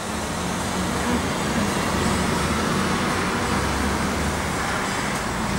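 Steady city traffic noise: a constant rumble and hiss of road traffic.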